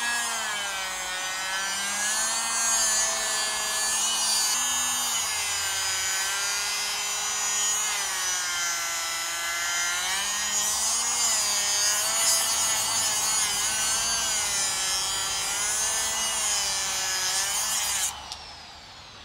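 Handheld electric grinder with a small abrasive cut-off wheel cutting through the steel inner race of a CV joint, a high whine whose pitch wavers up and down as the disc bites and frees in the cut. It stops abruptly near the end.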